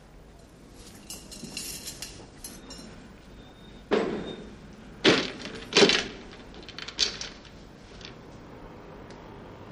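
Kitchen handling sounds: a bottle, glassware and a metal tray clinking and clattering on a counter, with a few loud sharp knocks of things being set down around the middle.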